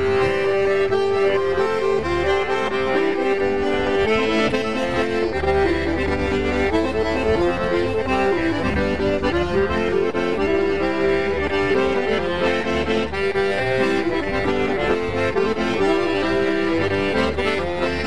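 Accordion music: a melody moving in steady held notes over a low bass line, with no singing.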